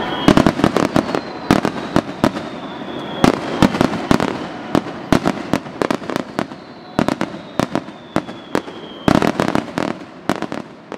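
Fireworks display: aerial shells bursting with sharp bangs and crackle, in rapid clusters, the densest near the start and about nine seconds in. Between the bursts, a faint high whistle slides slowly down in pitch a few times.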